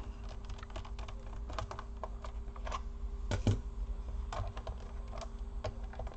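Light plastic clicks and taps as the bottom access covers of an Acer laptop are pried loose and lifted off, with two louder knocks about three and a half seconds in.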